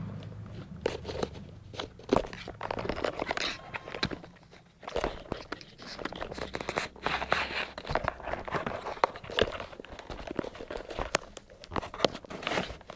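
Cardboard phone box and its packaging being handled: irregular rustling, scraping and small sharp knocks as the box's slide-out drawer tray is pulled open and its contents are handled.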